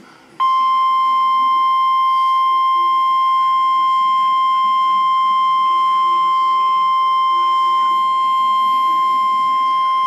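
Emergency weather-alert tone, the NOAA Weather Radio warning alarm tone: a single steady beep-like pitch of about 1 kHz that comes on sharply about half a second in and holds without change. It signals that a warning broadcast is about to follow.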